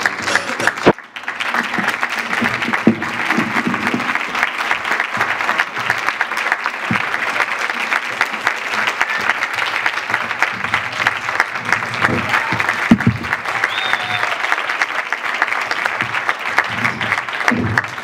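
Audience applauding, a dense, even clapping that starts about a second in, just as the guitar music stops.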